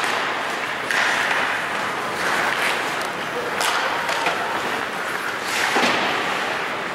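Ice hockey play on the rink: a steady scraping hiss of skates on the ice, broken by sharp knocks of puck, sticks and boards about a second in, midway and near the end.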